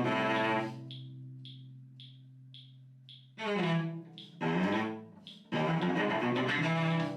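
Cello bowing low sustained notes: one long note fades away, then shorter sliding notes lead into a fuller passage. A light tick comes about twice a second during the quiet stretch.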